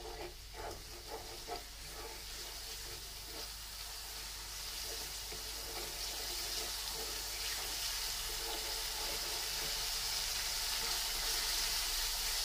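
Onion-and-spice masala sizzling in oil in a metal karahi while being stirred with a wooden spatula, as the masala is fried down (koshano). The steady hiss grows gradually louder.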